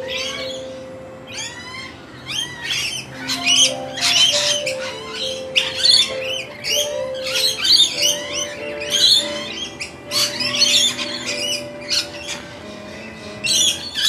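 A mixed feeding flock of rainbow lorikeets, Australian magpies and noisy miners calling over one another in quick, overlapping squawks and chirps. Background music with slow, held notes runs underneath.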